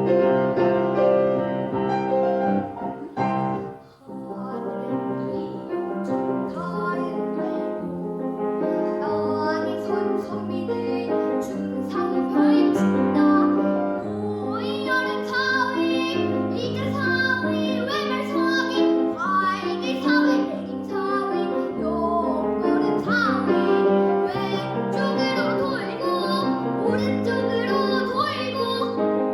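A young child singing a Korean traditional-style children's song (gugak dongyo) over piano accompaniment; the piano plays alone at first, with a brief break about four seconds in, before the voice comes in and carries the melody.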